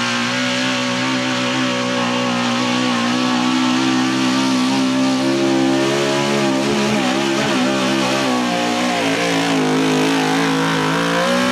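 Square-body Chevrolet pulling truck's engine running hard under load as it drags the weight-transfer sled, its pitch held nearly steady and wavering for a moment just past the middle.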